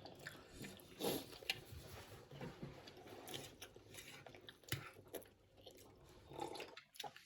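Faint chewing of food during a meal, with scattered short clicks.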